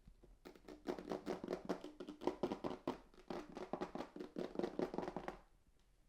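Hands handling and opening the packaging of the Logitech Craft keyboard box: a quick, irregular run of light taps, clicks and rustles that stops about half a second before the end.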